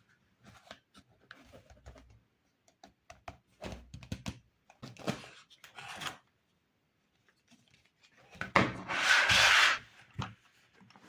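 Toy kitchen set pieces being handled: scattered light knocks, clicks and rubbing, then a louder rasping noise about 8.5 seconds in that lasts about a second and a half.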